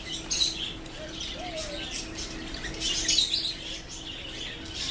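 Small birds chirping repeatedly in short high bursts, over a steady low hum.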